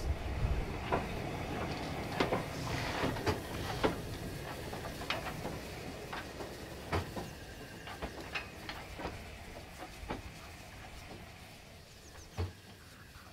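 LNER Class J72 0-6-0 tank engine moving slowly at close range, with irregular clanks and knocks from its wheels and motion over a light hiss, growing fainter as it draws away. One louder knock comes near the end.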